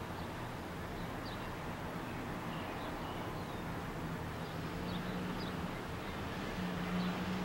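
Outdoor waterfront ambience: a steady background hum with a low drone that swells twice in the second half, and faint, scattered high bird chirps.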